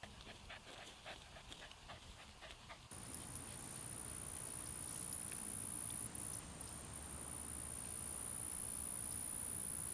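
A dog panting, with scattered small ticks at first. About three seconds in, a steady high-pitched tone starts and holds.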